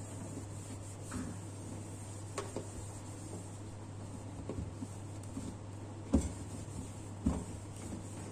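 A terry towel wiping a stainless steel gas stovetop, with a handful of short knocks against the metal, the loudest about six seconds in, over a steady low hum.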